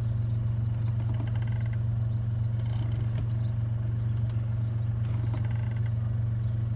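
Volkswagen Up TSI's three-cylinder turbo engine idling steadily while the clutch pedal is worked, with short squeaks and creaks repeating every half second or so: the chronic clutch-pedal noise of VW's manual Up TSI.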